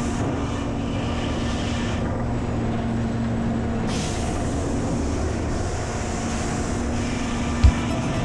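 Steady mechanical running noise with a constant low hum, and one sharp knock near the end.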